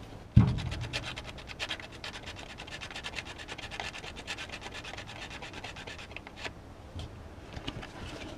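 A thump, then quick back-and-forth scraping of sandpaper between the breaker points in a 1951 Mercury flathead V8's distributor, dressing points that are probably corroded. The scraping eases to a few scattered strokes near the end.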